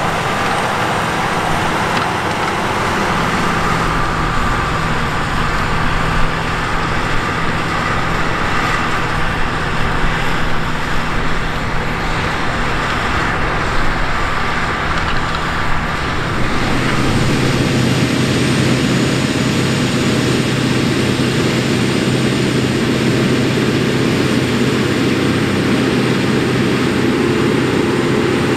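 Case IH Quadtrac 540's six-cylinder diesel engine working steadily under load as it pulls a disc harrow through stubble, with the clatter of the harrow's discs in the soil. About halfway through, the sound changes abruptly to a deeper, fuller engine note.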